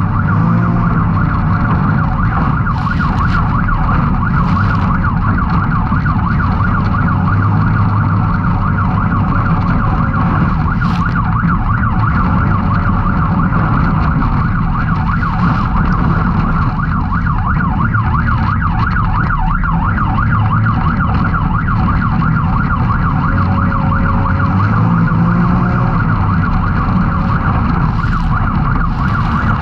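Can-Am Maverick X3's turbocharged three-cylinder engine running hard under load, its pitch repeatedly rising and falling with the throttle, with a few brief sharp knocks.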